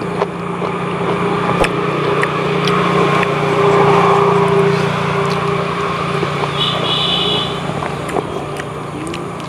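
An engine drones steadily, growing louder toward the middle and easing off again, with a few light clicks over it.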